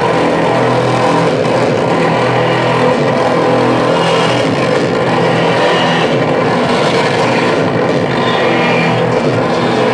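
Loud experimental noise music from tape and electronics played live: a steady, unbroken wall of distorted drone with a few held tones, no beat.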